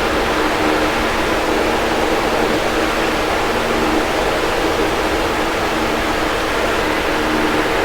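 Box fan running steadily: an even rush of moving air with a faint steady motor hum beneath it.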